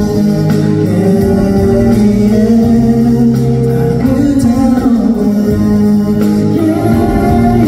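Live band music: a male vocalist sings over a stage keyboard, with guitar in the accompaniment.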